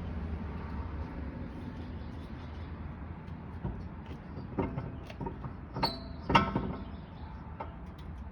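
Metal clinks and knocks of lug nuts and hand tools as a wheel is fitted onto the hub, several sharp strikes with a brief ringing, the loudest about six seconds in, over a steady low rumble.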